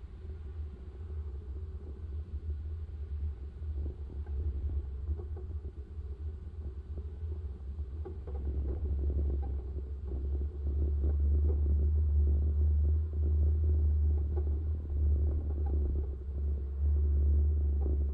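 Low, steady rumble of a vehicle driving along a rough concrete road, with road and wind noise on the camera; it grows louder about halfway through.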